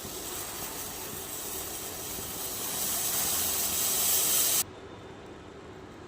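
Tea heating in a pan on a gas stove, hissing steadily and growing louder, then cutting off suddenly about four and a half seconds in.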